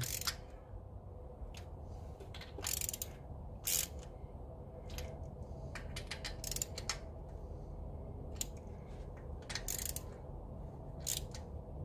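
Hand ratchet clicking in short runs, with light metal tool clinks, as intake manifold bolts are snugged down without torque to seat the gaskets.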